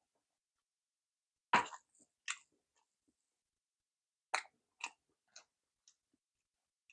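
Close-miked eating sounds: a handful of short, sharp mouth clicks after a drink from a paper cup, then light taps of wooden chopsticks. The loudest click comes about one and a half seconds in.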